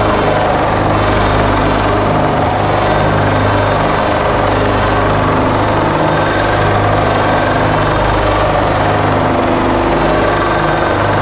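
Loud electronic synthesizer drone: a steady low hum with several held tones above it and a grainy, noisy texture on top.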